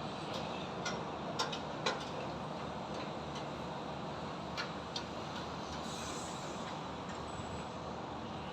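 Building-site and highway din: a steady rumble of traffic and machinery, with scattered sharp metallic clanks, several close together in the first two seconds and two more about halfway through.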